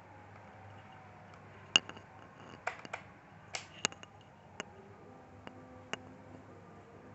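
Sharp clicks and taps of small screws and a screwdriver against laptop casing parts during reassembly, about eight of them scattered over a few seconds, the first the loudest.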